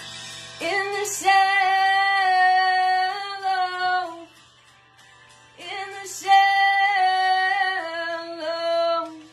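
A young woman singing solo: two long phrases with sustained, held notes and a short pause between them.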